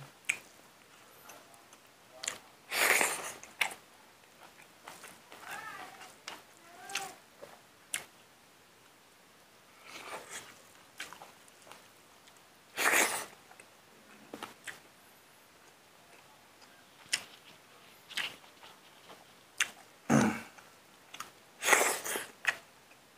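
Close-up mouth sounds of a man eating rice and pork curry with his hand: chewing, lip smacks and sharp clicks. There are three loud breathy bursts, about 3, 13 and 22 seconds in.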